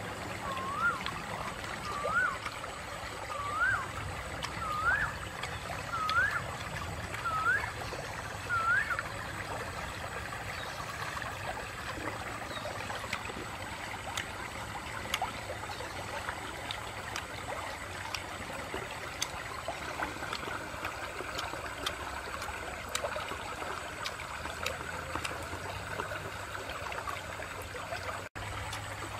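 Shallow stream trickling over stones. For the first nine seconds or so a short rising whistle repeats about every second and a half.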